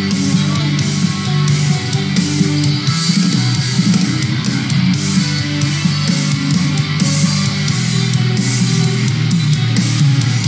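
Instrumental progressive metal playing loudly: distorted electric guitars over drums, with no voices.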